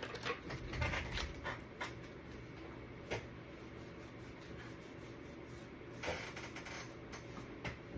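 Scattered small clicks and taps of handling craft tools and silicone molds on a work table, over a faint steady background hum.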